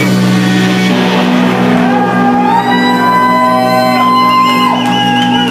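Live rock band holding a long sustained chord on electric guitar and bass, with a steady low drone underneath. Higher guitar notes ring over it, and a wavering high note comes in about four seconds in.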